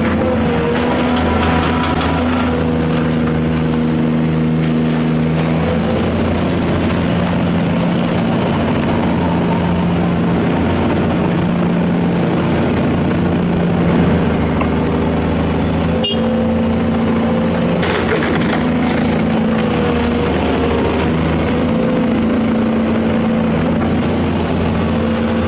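Crawler excavator's diesel engine running steadily, its note shifting a few times as the load changes. A single sharp knock about two-thirds of the way through.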